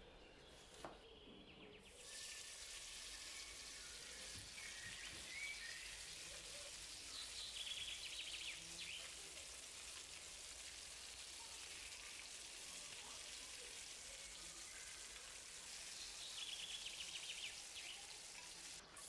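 Seasoned chicken thighs frying in oil in a non-stick pan: a steady sizzle that starts about two seconds in, with spells of louder crackling around eight seconds in and again near the end. Just before the sizzle, there is a single knock.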